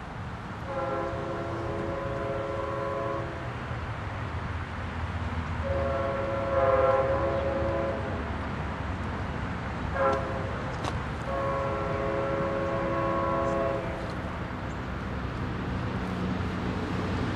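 Amtrak Sunset Limited locomotive sounding its multi-tone air horn in the grade-crossing pattern: long, long, short, long, over a steady low rumble. It signals a train approaching a crossing.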